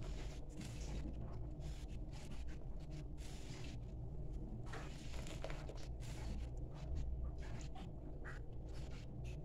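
Wet foam kitchen sponge squelching and scrubbing against a bar of homemade soap, working up a lather in short, irregular strokes over a steady low hum.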